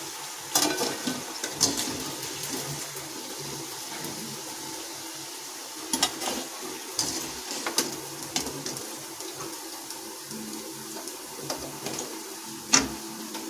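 Hot oil sizzling steadily as khaja pastries deep-fry in a steel kadhai, with several sharp metallic clinks and scrapes of a wire skimmer against the pan and a steel plate as the fried pieces are lifted out.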